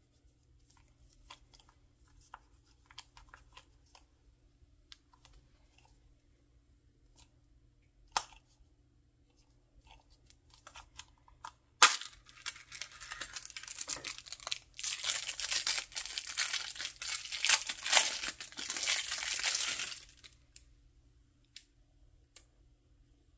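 Light clicks of a plastic gachapon capsule being handled, then a sharp snap just before halfway as it pops open. This is followed by about eight seconds of crinkling and tearing as the toy figure inside is unwrapped from its plastic wrapping.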